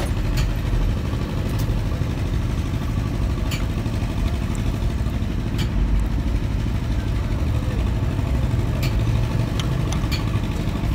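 An engine running steadily in the background as a low rumble, with a few short, sharp metallic clicks spaced a second or two apart as a threaded steel collar is screwed into a truck gearbox housing by hand.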